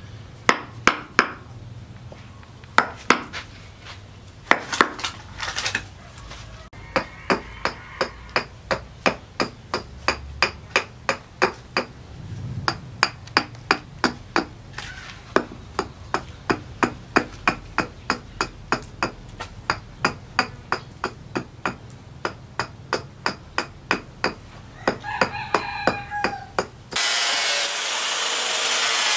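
Repeated chopping strikes of a small hand blade cutting into a wooden knife-handle blank on a wooden block, sparse at first and then about two a second. Near the end an electric angle grinder starts and runs with a steady high whine as it shapes the wooden handle.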